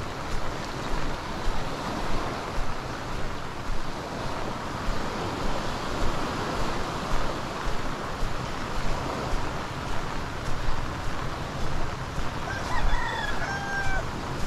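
Heavy rain falling as a steady hiss. Near the end a rooster crows once.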